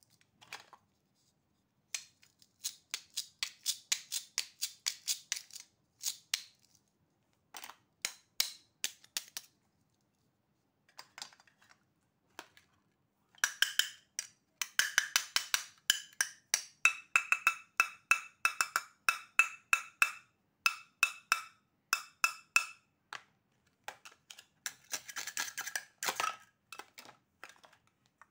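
Hook-and-loop (velcro) fastenings on plastic toy food pieces being pulled apart: repeated bursts of quick crackling rasps, each a second to a few seconds long, with short pauses between. The bursts in the middle are squeakier.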